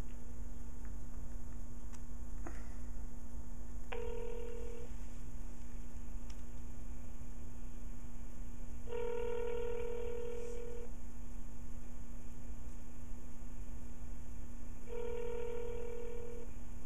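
Telephone ringback tone of a call waiting to be answered: a steady buzzy tone rings three times, a short ring about four seconds in, then two rings of about two seconds each, six seconds apart. A steady low hum runs underneath.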